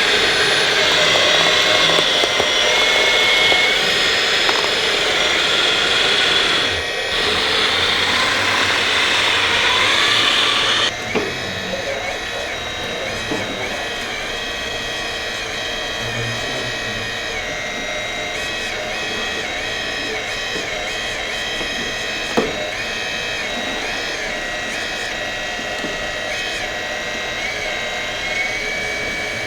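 High-pitched whine of the small electric motors and hydraulic pumps of RC model construction machines, the pitch stepping up and down as the machines are worked. The sound is louder and denser for about the first eleven seconds, then drops to a quieter whine.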